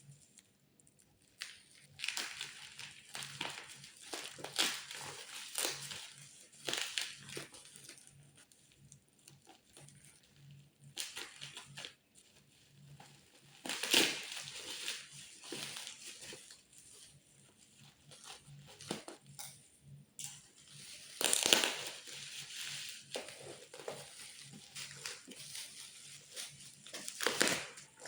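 Plastic packaging crinkling and rustling in irregular bursts as a parcel is unwrapped by hand, loudest about halfway through and again a little later.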